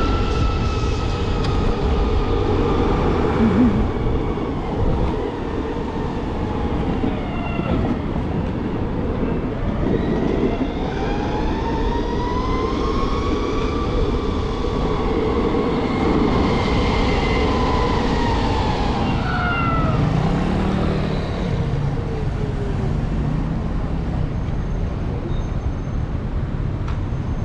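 Electric skateboard motors whining as the board accelerates and slows, the pitch climbing about ten seconds in and sliding back down about ten seconds later, over a steady rush of wind and wheel rumble.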